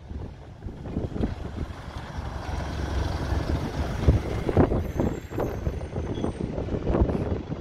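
A bus's diesel engine running with a steady low rumble, broken by irregular short bursts of noise; faint thin high tones come in about halfway through.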